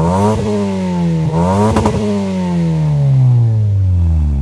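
Car engine revved twice through an aftermarket stainless canister muffler: each blip rises quickly in pitch, then the revs fall back slowly.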